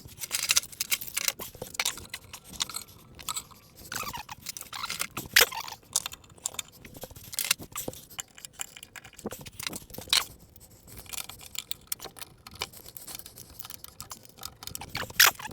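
Irregular clatter of sharp clicks and knocks as clamps are handled and hung on a wooden wall rack, with a louder knock about five seconds in and another near the end.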